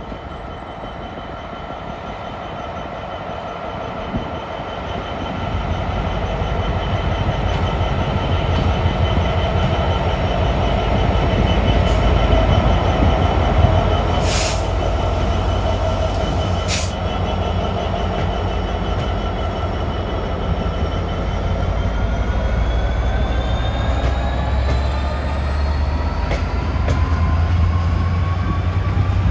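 GBRf Class 66 diesel-electric locomotive, with its two-stroke V12 engine, running slowly past with a train of loaded sleeper wagons: a deep engine drone with steady high-pitched wheel and engine tones, getting louder as the locomotive comes close about halfway through. In the last several seconds the high tones rise in pitch as the wagons roll by.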